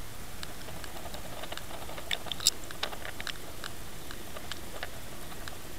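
Underwater sound picked up by a submerged camera while trolling: a steady hiss of water with scattered sharp clicks and ticks, a few louder ones about two and a half seconds in.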